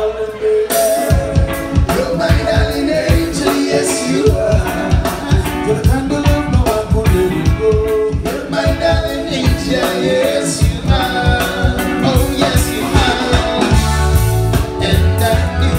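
Live reggae band playing, with several singers on microphones over electric guitar and a steady drum beat. The deep bass comes back in heavily near the end.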